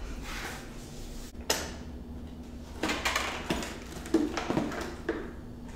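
Handling noise from a motorcycle's rear seat being unlocked with its key and worked loose: a few sharp clicks and light knocks of plastic and metal, with rustling between them.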